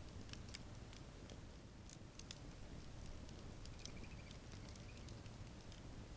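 Wood campfire crackling faintly, with scattered small, sharp pops at irregular intervals over a low, steady rumble.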